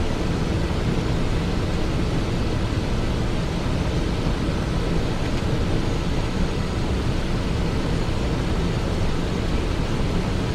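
Steady in-flight noise inside a Cessna Citation XLS business jet: an even rush of airflow over the airframe mixed with the hum of its engines.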